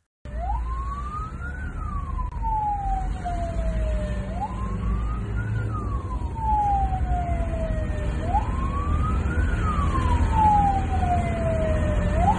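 A siren wailing, its pitch rising quickly and then falling slowly, once about every four seconds, over a steady low rumble.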